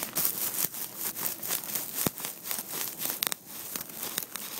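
Handling noise from fingers rubbing and fumbling over a phone's microphone: irregular scratchy rustling with many small clicks and knocks.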